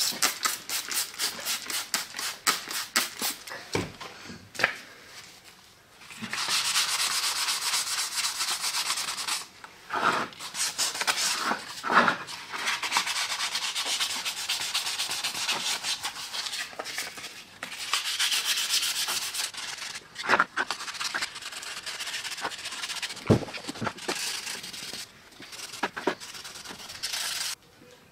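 Plastic drill housing being wet-sanded by hand with sandpaper, in steady back-and-forth rubbing strokes from about six seconds in until they stop just before the end. The first few seconds hold a quick run of short spray-bottle squirts wetting the plastic.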